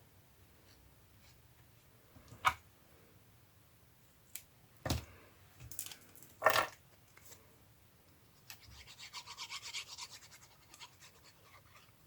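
Paper and craft pieces handled on a worktable: a few sharp knocks, then a quick run of rubbing, scratching strokes, about five a second, near the end.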